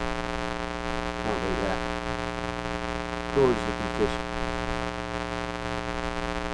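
A steady electrical hum with many overtones. A man's voice makes two short sounds, about a second in and again past the middle, the second one louder.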